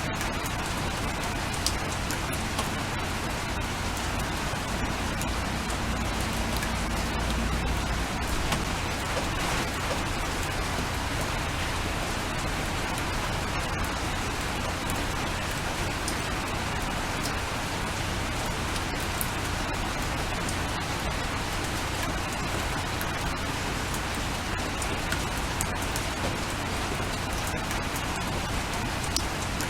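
Steady rain falling, an even hiss with many small scattered drop taps.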